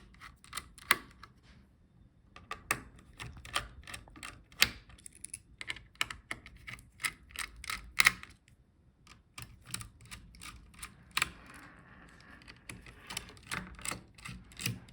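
Irregular light clicks and taps of a screwdriver and small screws on a laptop's metal heatsink-fan assembly as its screws are undone, with a short scraping rustle about eleven seconds in.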